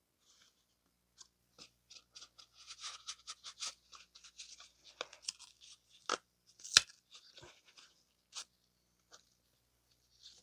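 Crinkling and crackling of a cut-open oil filter's pleated synthetic-paper element being handled, with two sharp clicks standing out about six and seven seconds in.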